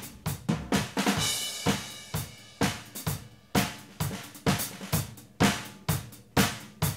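Room-mic recording of an acoustic drum kit playing a steady beat of kick, snare and cymbal hits, run through warm tube saturation. The drive makes the cymbals a little bit nasty.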